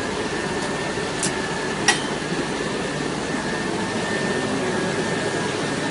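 Steady engine drone with a thin, steady high whine running through it, and two sharp clicks a little over a second and about two seconds in, the second louder.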